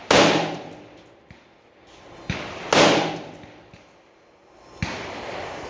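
AR-15 rifle firing .223 rounds: two loud shots about three seconds apart, each followed by a long echoing tail, with fainter knocks in between.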